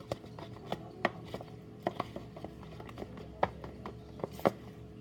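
A spoon stirring pigment into glue in a small container, tapping and clicking against the sides at an irregular pace.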